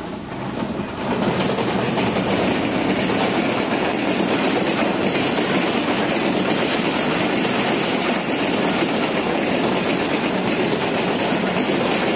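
Diesel-hauled passenger train passing close by, its coaches running past with a steady rumble and the clickety-clack of wheels over rail joints. It grows louder about a second in and stays loud.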